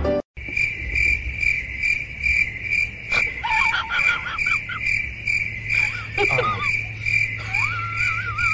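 A high, even chirp repeating about three times a second, while a dog whines in wavering high glides, briefly about three seconds in and again for the last couple of seconds.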